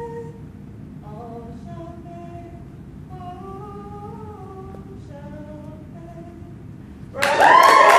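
A woman singing solo a cappella in long held notes. Her voice ends about six and a half seconds in, and the audience breaks into loud applause and cheering near the end.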